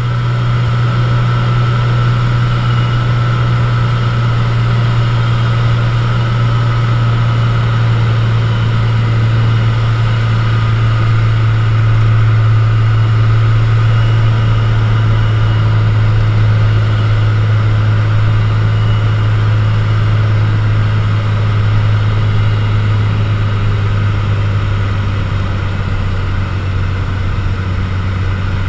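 Cessna U-206G Stationair's six-cylinder piston engine and propeller droning steadily, heard inside the cabin, on approach to landing. The drone drops slightly in pitch in the second half.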